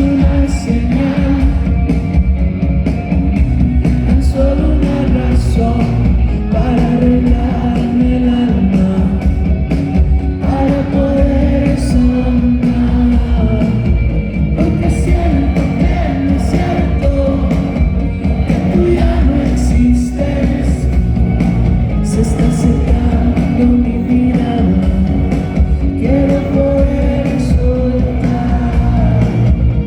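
Rock band playing live, with a sung melody over drums, bass and guitars.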